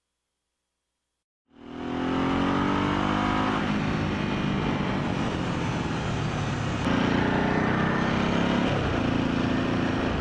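Motorcycle engine accelerating, its pitch rising for a couple of seconds, then running steadily at speed with wind noise. It comes in about a second and a half in after a brief silence.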